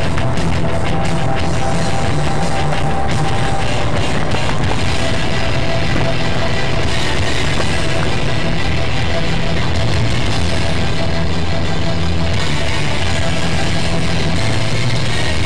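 Heavy rock music with drums, playing steadily.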